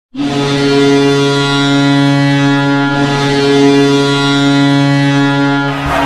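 VHK Robe Vsetín's ice hockey goal horn sounding one long, steady, low blast that cuts off near the end.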